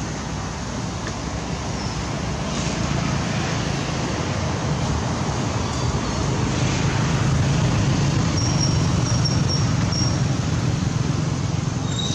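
Steady background noise, a low rumble with hiss, with a few brief high-pitched chirps in the last few seconds.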